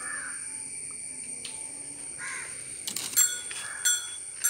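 Crows cawing outdoors: several short harsh caws, the loudest coming in the last second or two.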